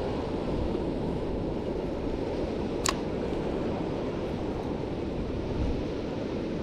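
Steady low rumble of wind on the microphone mixed with ocean swell washing against the rocks below, with a single sharp click about three seconds in.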